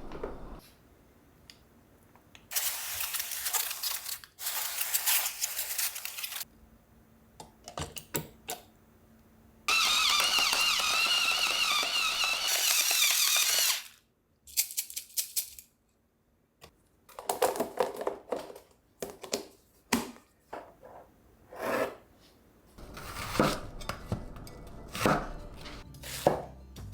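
Countertop blender motor running at high speed for about four seconds, its pitch wavering, then cutting off abruptly. A shorter noisy stretch comes earlier, and scattered clicks and knocks of kitchen handling come after it.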